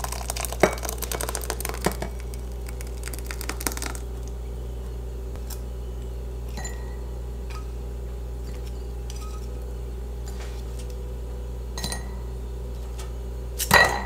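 Glassware and dishes clinking and clattering as they are handled: a busy run of clatter for the first few seconds, then a few single clinks, and a louder knock near the end. A steady low hum runs underneath.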